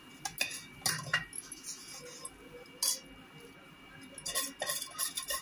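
Steel spoon scraping and clinking against a stainless-steel plate as a thick, soft bottle-gourd (lauki) barfi mixture is spooned in and pressed down. The taps and scrapes are irregular and come most often near the end.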